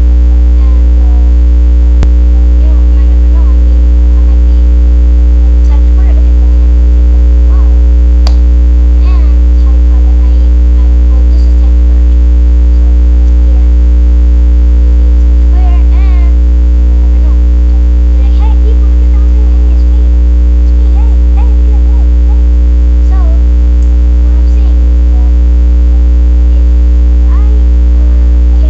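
Loud, steady electrical mains hum in the recording: a low buzz with a stack of overtones that does not change. Faint, scattered small sounds sit underneath it.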